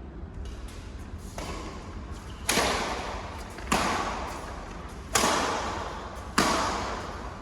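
Badminton rackets striking the shuttlecock in a rally. Two softer hits come first, then four sharp, loud hits about a second and a quarter apart, each ringing on briefly in the hall.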